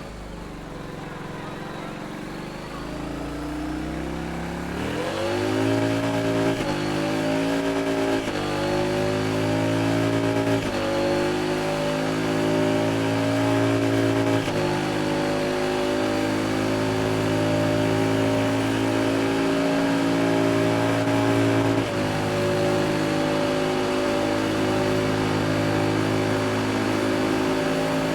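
Yamaha XSR700's 689 cc parallel-twin engine with a decat exhaust running under way. Its pitch falls off in the first few seconds, picks up about five seconds in, and drops in a few steps over the next ten seconds as it changes up through the gears, then holds a steady cruise.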